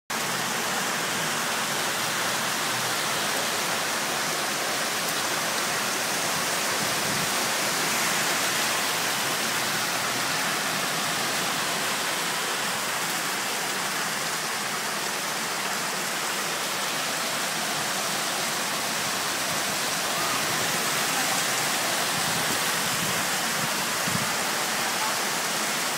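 Heavy rain pouring down steadily onto a paved street and parked cars, a dense, even hiss.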